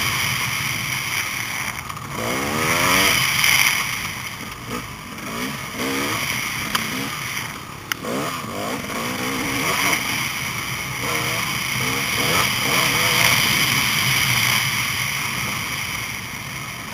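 Dirt bike engine, heard from the rider's helmet camera, revving up and easing off again and again under a steady rush of wind noise. There is one sharp click about eight seconds in.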